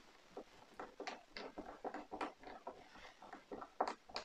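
Precision screwdriver turning a small screw into a plastic model part: a run of faint, irregular clicks and scratches, with one sharper click near the end.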